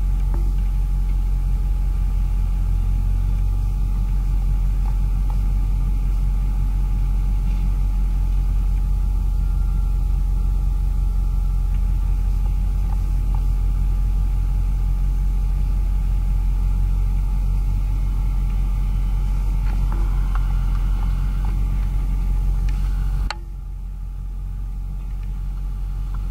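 Caterpillar D6D crawler dozer's six-cylinder diesel running steadily under load as the dozer pushes a large oak stump, a loud continuous low rumble. About three seconds before the end the sound drops to a quieter, more distant rumble.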